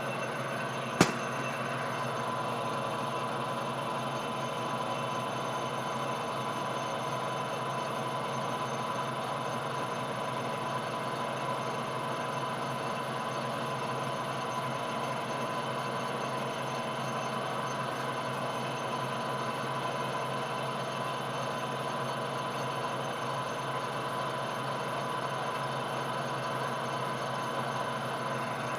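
Metal lathe running steadily while a knurling tool rolls a pattern into a spinning Delrin bar, a constant machine hum made of several steady tones. A single sharp click about a second in.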